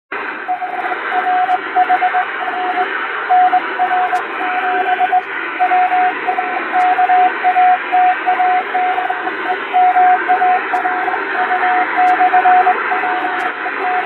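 Hand-sent Morse code from a straight telegraph key, heard as a single steady tone keyed on and off in dots and dashes over shortwave-style static hiss with fading. It is sending the preamble of a radiotelegram: the message number, the ship's name and call sign, the word count and the filing time.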